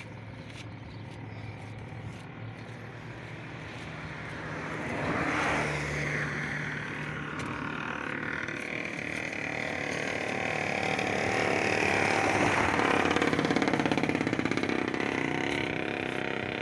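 Vehicles passing on the road over a bridge: one goes by about five seconds in, then a louder, longer pass builds and peaks past the middle before fading toward the end.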